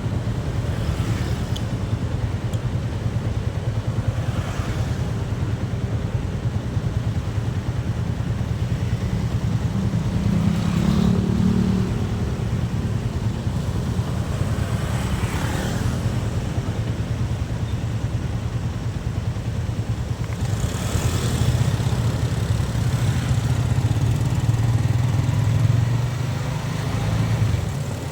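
A Yamaha Vixion's single-cylinder four-stroke engine running steadily under way, with wind and road noise. It swells louder briefly about ten seconds in, and again for a few seconds near the end.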